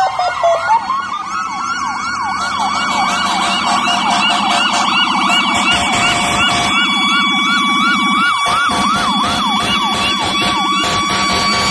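Electronic emergency-vehicle sirens on passing fire apparatus: a wail winding down at the start, then a fast yelp of about two to three sweeps a second. A steady high siren tone joins about two-thirds of the way through.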